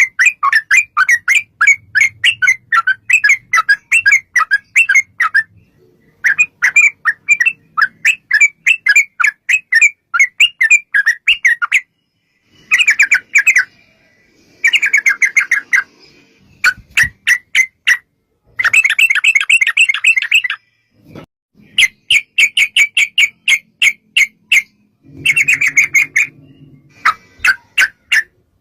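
Yellow-vented bulbul (trucukan) singing in long runs of rapid, repeated chattering notes, the 'ropel' song, broken into several bursts by short pauses.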